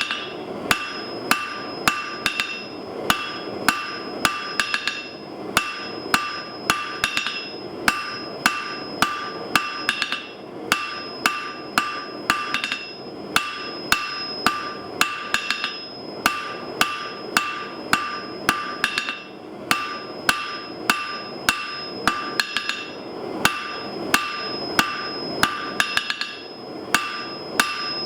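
Hammer blows on a 160 lb Trenton anvil at a steady rate of about two a second, each blow leaving the anvil ringing with a high tone. The rhythm pauses briefly twice, about a third and two-thirds of the way through.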